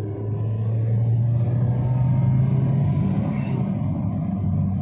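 Maruti Suzuki Swift Dzire engine running on CNG through a sequential kit, heard from inside the cabin while the car accelerates: a steady, smooth engine hum that rises in pitch and grows louder over the first two seconds or so, then eases off about three and a half seconds in.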